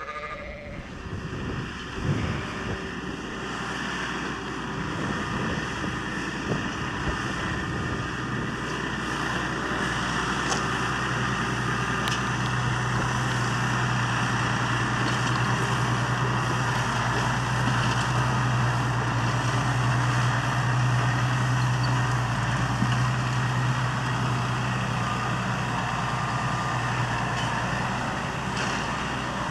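Massey Ferguson 7616 tractor's six-cylinder diesel engine pulling under ploughing load. It grows louder over the first ten seconds or so as it draws near, then holds a steady drone.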